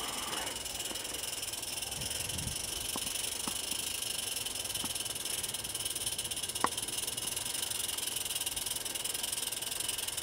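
Live-steam SM32 narrow-gauge model locomotive hissing steadily as it works slowly through deep snow with a plough on its front. A few single sharp clicks come through, the loudest about two-thirds of the way in.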